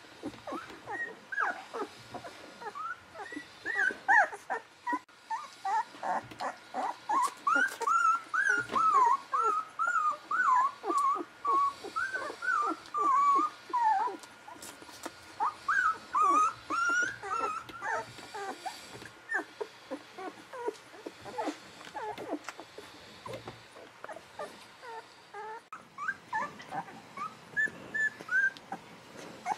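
Newborn golden retriever puppies squeaking and whimpering while they nurse: a quick string of short, high, wavering squeaks, densest through the middle, with many short clicks between them.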